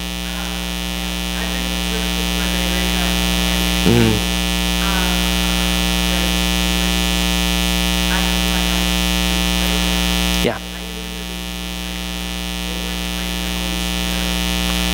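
Loud steady electrical buzz with many overtones, growing slowly louder, with a faint distant voice underneath. A short low thump comes about four seconds in, and a brief sudden dropout near the end.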